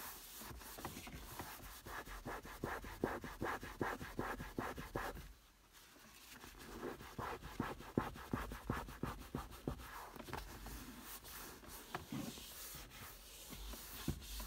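A hand-held pad rubbing quickly back and forth over the filled, patched leather of a Mercedes W124 seat bolster, several strokes a second. The work is preparing the repaired area for paint. The strokes pause briefly about five seconds in, then resume.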